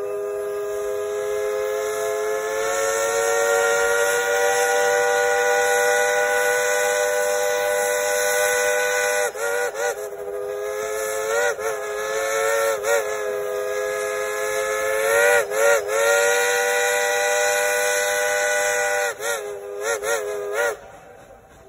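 Steam locomotive's whistle blowing a chord of several notes together: one long blast of about nine seconds, then a run of short toots and longer blasts, the pitch sagging each time it cuts off.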